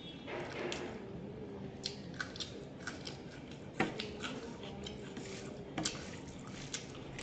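Hand mixing rice and curry on a steel plate: soft squishing with scattered sharp clicks of fingers against the metal, the two sharpest about four and six seconds in.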